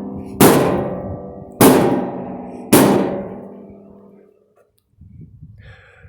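Sledgehammer striking a metal vending machine three times, about a second apart, each blow ringing out and fading.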